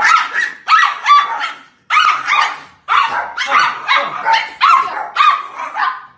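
Small poodle-type dogs barking at each other in a rapid string of high barks, about two to three a second, which stops at the very end.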